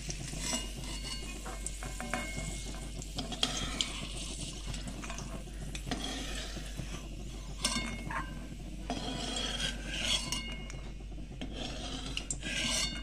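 Flat metal spatula scraping and clinking against a metal kadhai as ghee-fried raisins and chironji seeds are scooped out, in uneven strokes with scattered sharp clicks.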